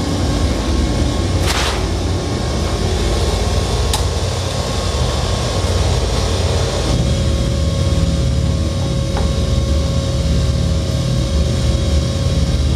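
Loud, steady low rumbling drone with a faint steady hum, broken by two sharp knocks about one and a half and four seconds in.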